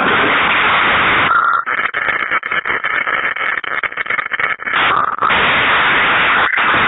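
Audience applauding: a dense wash of clapping, thinning for a few seconds in the middle so that single claps stand out.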